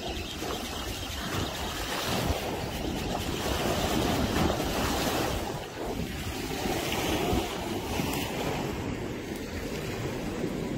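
Wind buffeting the microphone over sea waves washing against a concrete seawall.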